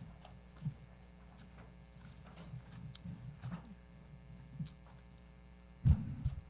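Quiet hearing-room tone with a steady electrical hum and scattered soft knocks and rustles, then a louder low thump about six seconds in.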